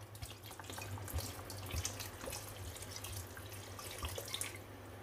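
Red wine poured from a bottle into a pan of boiling broth and vegetables: a trickling, splashing stream over the crackle of the bubbling, which thins out near the end as the pouring stops.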